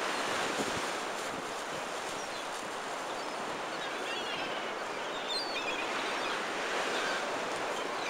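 Rough sea surf at high tide breaking and washing against the seafront, a steady rushing, with faint gull calls in the second half.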